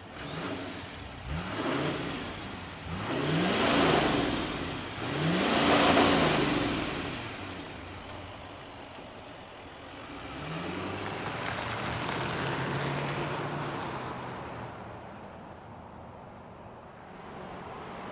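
The 6.6-litre Duramax turbo-diesel V8 of a 2024 GMC Sierra 2500 HD AT4X is started and revved three times, each rev rising and falling, the last two loudest. About ten seconds in, a steadier engine note swells and fades as the truck drives off.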